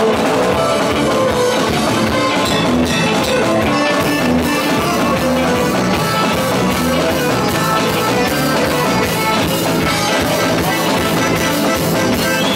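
Live chutney band music, loud and steady, with electric guitar and drums.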